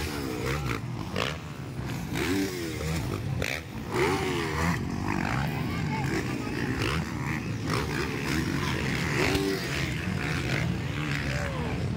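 Several motocross dirt bikes racing, their engines revving up and falling away again and again.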